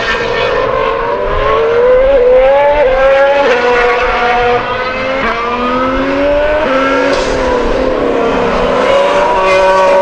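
Ferrari Formula 1 car's 1.6-litre turbocharged V6 hybrid engine at high revs. The pitch climbs through a series of quick upshifts, then drops away as the car slows, and a higher engine note comes in near the end.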